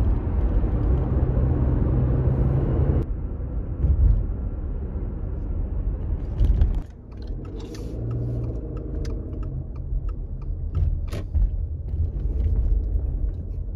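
Steady rumble of tyre and engine noise inside a moving car. Its character changes abruptly twice, and a few faint clicks come in the second half.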